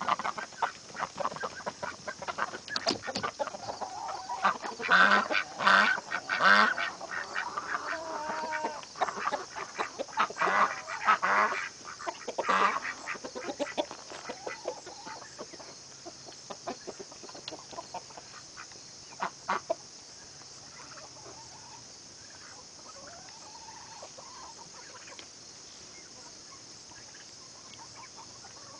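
A flock of domestic ducks quacking in short, repeated calls, mixed with chickens clucking. The calls are dense for about the first twelve seconds, then thin out to a few scattered, fainter clucks and squawks.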